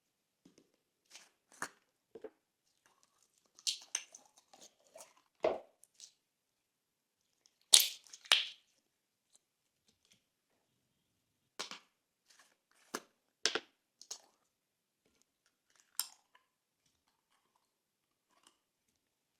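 Slime being worked with crunchy add-ins: irregular sharp crackles and crunches with quiet gaps between them, the loudest a double crunch near the middle.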